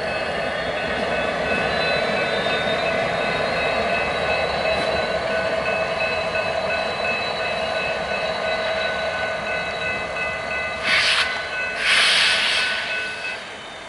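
A string of BNSF diesel locomotives rolling slowly past, with engines running and wheels on the rail, under several high steady tones. Two short, loud bursts of hiss come near the end.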